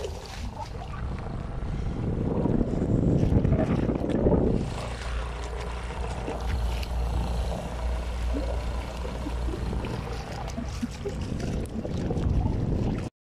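Small boat's motor running steadily under way, with wind buffeting the microphone and water washing past the hull, loudest from about two to four and a half seconds in.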